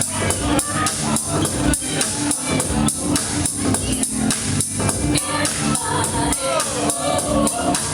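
Music played loud over speakers: a steady drum beat with bright, tambourine-like percussion and a vocal line over it.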